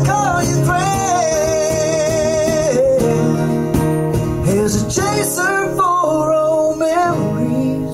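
Live song: a singer holding a long, wavering note over acoustic guitar, then several shorter sung phrases.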